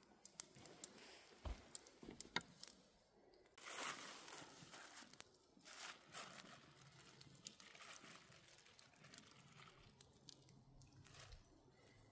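Faint rustling and crinkling as something is handled, with a few sharp clicks in the first three seconds.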